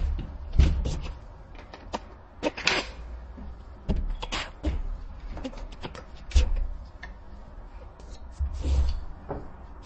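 Irregular clicks and knocks, with a few dull thumps, from parts and tools being handled while building the rifle.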